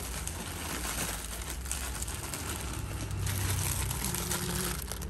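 Plastic-wrapped snack packs crinkling and rustling as they are handled and packed into a cardboard box, with small scattered knocks.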